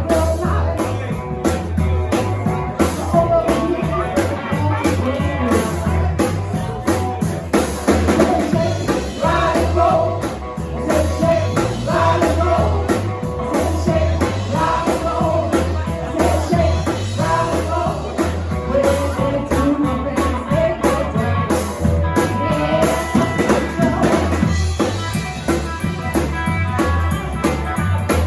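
Rock and roll band playing, with a steady drum and bass beat, guitar and a singing voice.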